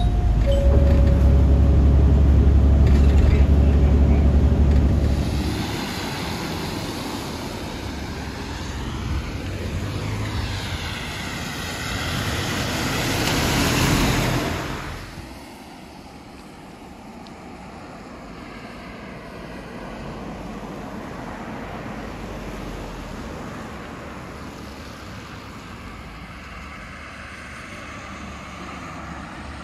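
Road vehicle noise on a wet road. A heavy engine hums deep and loud for the first five seconds. Then a tyre hiss with a sweeping, whooshing quality swells to a peak about halfway through and falls away suddenly, leaving quieter steady road noise.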